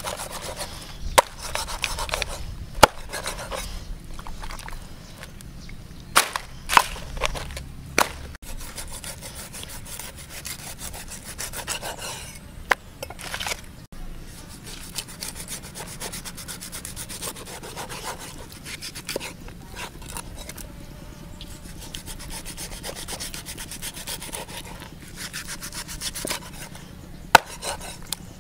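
A cleaver cutting through stingray skin and flesh against a wooden chopping block, with a steady scraping noise. Sharp knocks come now and then as the blade hits the wood.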